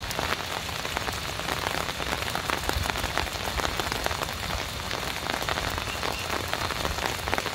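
Steady rain falling, a dense patter of individual drops.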